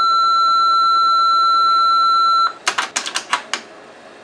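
Answering machine's steady electronic beep, one pitch, cutting off about two and a half seconds in, then a quick run of sharp clicks for about a second.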